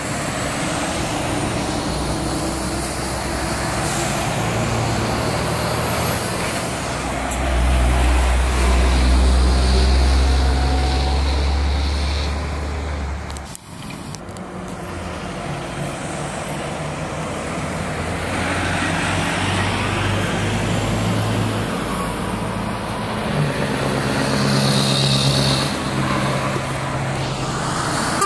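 Heavy diesel trucks driving past one after another. A deep low engine drone is loudest from about eight to thirteen seconds in, and more truck engines pass in the second half.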